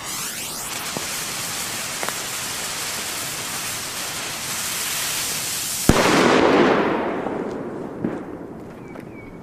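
El Gato Trueno N°6 Especial butterfly firecracker (vlinder, 1.5 g) lying on the ground and spraying sparks with a steady hiss for about six seconds. It then goes off with a sharp bang, and the noise dies away over the next couple of seconds.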